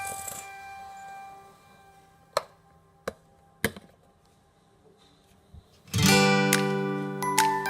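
Acoustic guitar background music: a strummed chord rings and dies away, three sharp clicks sound in a near-silent gap, then a new strummed chord starts loudly about six seconds in.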